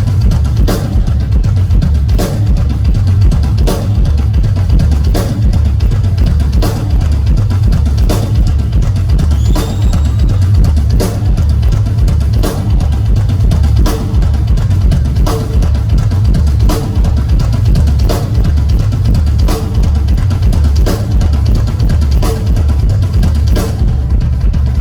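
Rock drum kit playing a solo: a dense, driving bass-drum pattern under sharp, regular accents that land about every second and a half.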